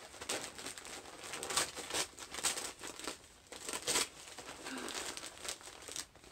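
Colourful wrapping paper and tissue paper crinkling and tearing as a gift-wrapped parcel is opened by hand, in irregular rustles with a few louder, sharper crackles.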